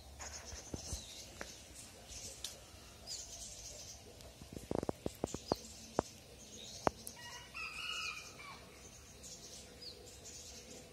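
Small birds chirping and twittering throughout, with a rooster crowing once, faintly, about seven to eight seconds in. A quick run of clicks comes around four to five seconds in.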